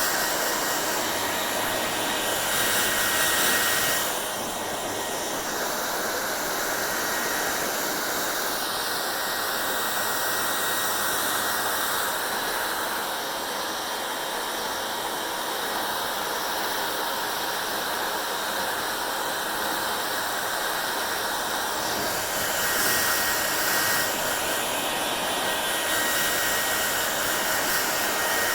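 Hair dryer blowing steadily: a continuous rush of air with a thin high whine from its motor, the tone of the rush shifting several times as it goes on.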